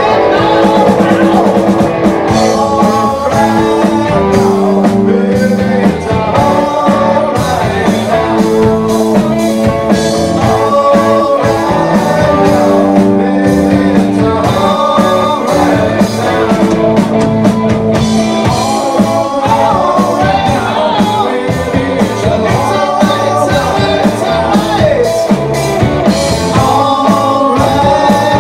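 Live rock band playing: a singer's voice over electric guitars, electric bass and a drum kit keeping a steady beat.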